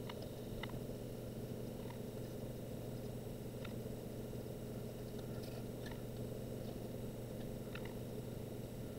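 Steady low hum of room tone, with a few faint, short ticks scattered through it.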